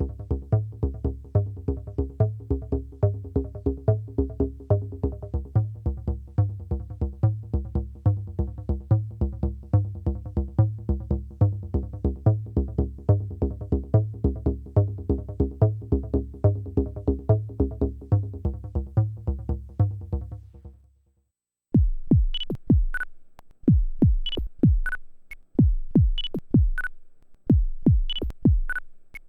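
Dave Smith Evolver synthesizer playing a sequenced patch: a bass-heavy repeating pattern of pulses, about three or four a second, that fades out about 21 seconds in. After a brief silence a different patch starts, with drum-machine-like hits that fall sharply in pitch, topped by high clicks, in an uneven groove.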